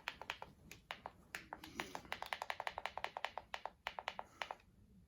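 Rapid clicking of the Eton Zoneguard weather radio's push buttons, pressed over and over in quick succession to step the clock setting forward, then a few slower presses near the end.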